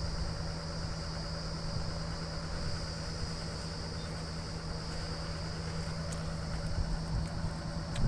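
Engine of a truck-mounted borewell drilling rig idling, a steady low hum with no change.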